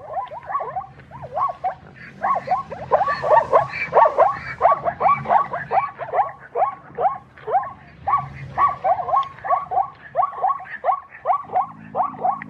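A chorus of many short animal calls, each falling in pitch, coming several a second and overlapping one another.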